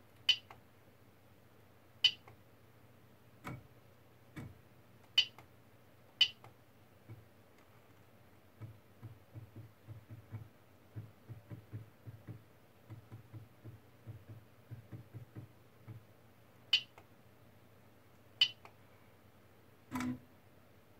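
CoreXY 3D printer's stepper motors making a string of short jogging moves, several short low buzzes a second for about seven seconds in the middle, then a longer move near the end. Sharp clicks come a few seconds apart, with a couple of low thuds early on.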